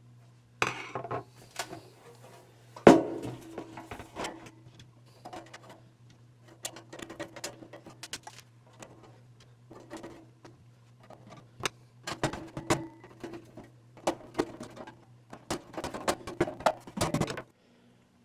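Irregular metal clicks, knocks and rattles as screws are driven back into a Toastmaster 9B1 space heater's housing, with one sharp knock about three seconds in. A faint steady low hum runs underneath and cuts off suddenly near the end.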